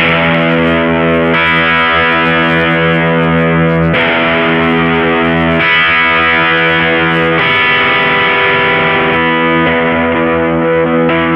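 Electric guitar played through a JOYO Deluxe Crunch overdrive pedal: distorted chords held and ringing out, changing to a new chord every couple of seconds.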